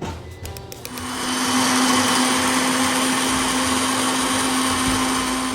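Electric blender motor switched on about a second in and running at a steady speed, a constant hum with a loud whirring hiss.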